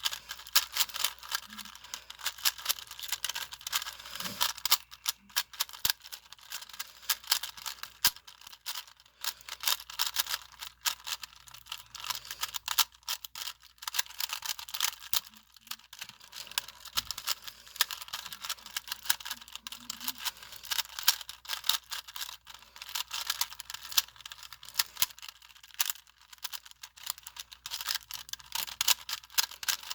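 Rubik's cube being turned rapidly by hand: a dense, irregular run of plastic clicks and rattles as the layers snap round during a solve.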